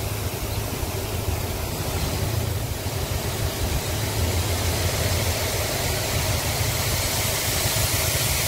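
Tractor engine running steadily to tip a loaded trolley, with the hiss of grain pouring out of the opened rear gate onto the ground growing louder about halfway through.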